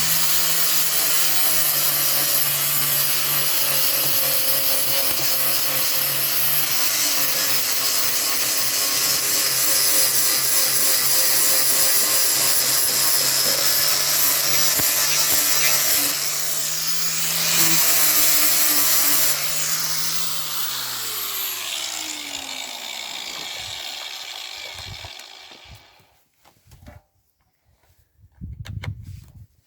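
Makita angle grinder sanding old paint off wooden exterior boards: a steady motor whine under a rough scraping noise. About two-thirds of the way through it is switched off and spins down with a falling pitch, going quiet near the end, with a few faint knocks after.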